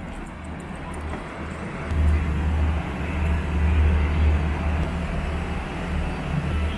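Steady low rumble of idling diesel trains in a railway station, growing louder about two seconds in, over a general wash of station noise.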